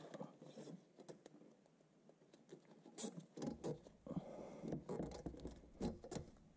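Faint handling noise of gloved hands fitting a plastic cable tie around wiring under a car's body: a scatter of small clicks, scrapes and rustles, busier in the second half.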